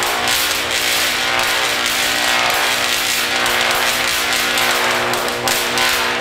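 75,000-volt DC arc buzzing and crackling continuously as it strikes a pineapple's leaves: a steady buzz of one unchanging pitch under a constant sizzling crackle.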